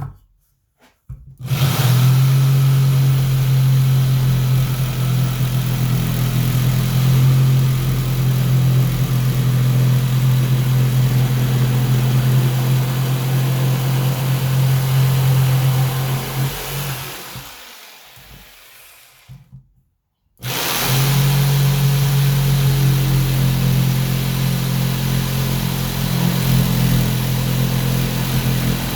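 Black & Decker BDEJS300C corded jigsaw making two crosscuts through a 2x4, running loud and steady. Partway through, the first cut ends and the saw winds down to a stop; after a short silence it starts again for the second cut.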